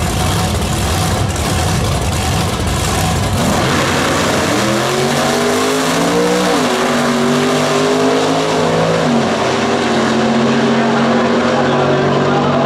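Two drag-racing cars, a supercharged 1956 Chevrolet gasser and a first-generation Camaro, making a side-by-side pass. The engines run with a loud, rough rumble at the line, then launch about four seconds in. The engine note climbs, drops sharply twice at the gear changes, and holds steady as the cars run down the track.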